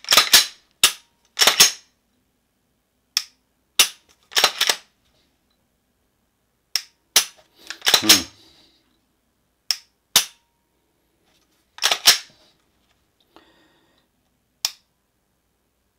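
Glock 17 Gen4 pistol being reassembled and worked by hand: a dozen or so sharp metallic clicks and snaps at irregular intervals as the slide goes onto the frame and is cycled and the trigger is dry-fired, checking the pull and reset after a connector swap.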